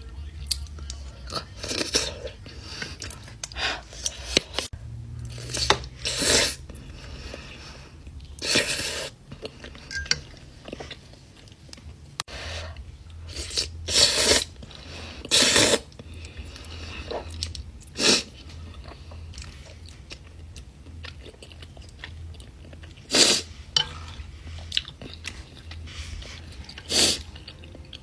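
A person eating close to the microphone, chewing and crunching in irregular bursts, with several louder bites or slurps, over a steady low hum.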